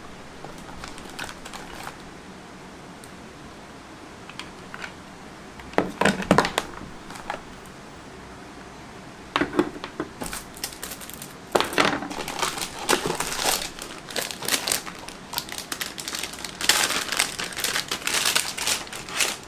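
Plastic packaging crinkling and a cardboard box being handled while an RGB LED strip kit is unpacked, its power adapter, controller and bagged remote lifted out and set down on a desk. Sparse at first, the rustling grows busier about halfway through.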